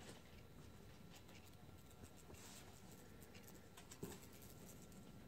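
Near silence: faint room tone with a few soft ticks, one about four seconds in.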